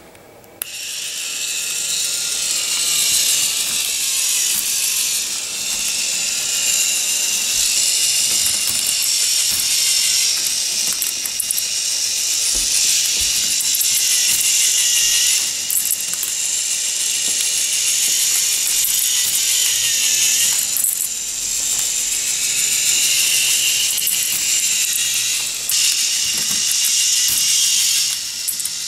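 K'NEX motor switched on about half a second in, then running the plastic stepper lift and its gears with a steady high whir.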